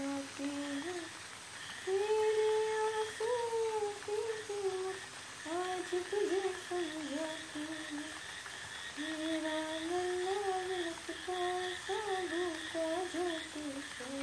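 A woman singing a slow, sad lullaby alone, with long held notes in phrases broken by two short pauses.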